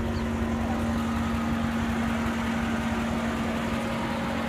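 A 1991 Chevrolet Corvette's V8 engine idling steadily, with an even low rumble and a constant hum.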